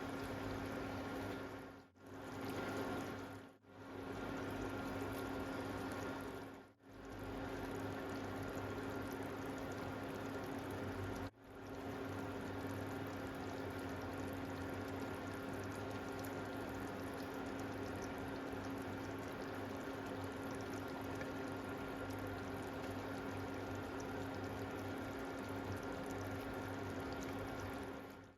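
Mutton cooking in a karahi, bubbling in its juices: a steady bubbling hiss with a low steady hum under it, cut off briefly and faded back in four times, near the start and in the first third.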